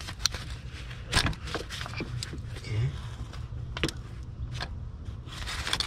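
Scattered metallic clicks and light scrapes of a ratchet and socket being handled and fitted onto the bolts of a car engine's VVT solenoid, at uneven intervals over a steady low hum.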